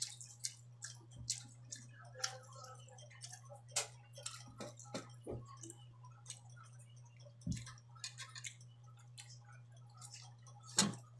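Close-up eating sounds: irregular crunching clicks and mouth noises of someone chewing dried salted fish, over a steady low hum.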